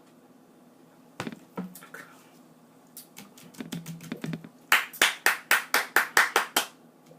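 A few scattered light taps, then near the end a quick run of about nine sharp hand strikes, about four a second.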